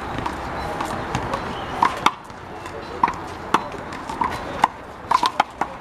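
Rubber handball smacked by hand and against the wall in a one-wall rally: a string of sharp slaps at uneven spacing, with a quick cluster of them near the end, over faint voices.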